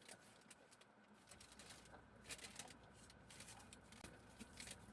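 Near silence: faint room tone with a few brief, soft clicks and rustles.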